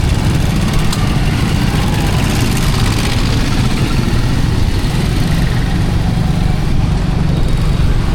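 Steady running noise of a road vehicle in traffic: a low engine-and-road rumble with no clear change in pace, and a brief click about a second in.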